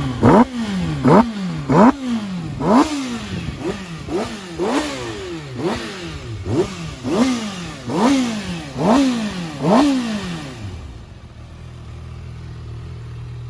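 Kawasaki ZX-6R 636 inline-four engine blipped repeatedly, about a dozen quick revs less than a second apart, each rising sharply and falling straight back. Near the end it settles to a steady idle.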